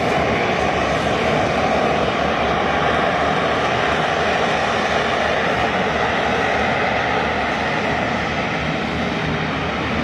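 Loud, steady jet noise from an F-35B's single Pratt & Whitney F135 engine running at high power.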